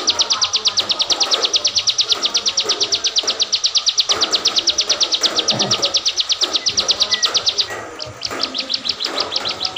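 Caged ciblek singing a long, rapid trill of sharp high repeated notes, about nine a second; it breaks off about three quarters of the way through and starts again briefly near the end.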